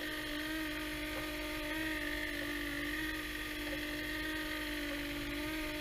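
Model cable car's small electric drive motor running with a steady whine as the gondola travels along its cable.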